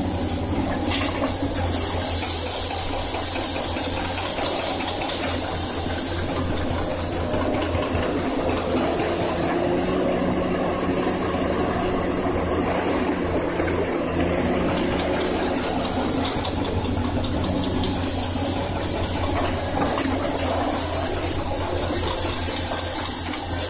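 Excavator engine running steadily with a low hum under a broad hiss, as the machine works its ripper tooth into soil.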